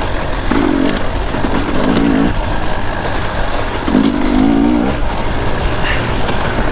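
Two-stroke dirt bike engine being ridden hard, revving up in three short bursts about half a second, two seconds and four seconds in, over a steady rumble.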